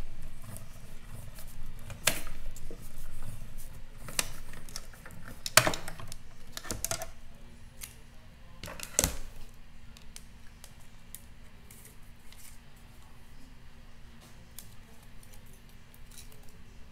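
Stampin' Cut & Emboss die-cutting machine being hand-cranked, drawing a sandwich of cutting plates and thin metal dies through its rollers with a low rumble and clicking. Several sharp clacks follow as the plastic cutting plates are handled, the last about halfway through, then only light ticks.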